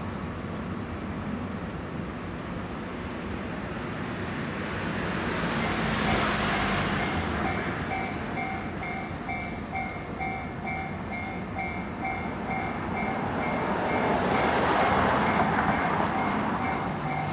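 Japanese level-crossing warning bell starting about six seconds in and ringing steadily at about two strokes a second, while trains pass on the multi-track line, their noise swelling twice.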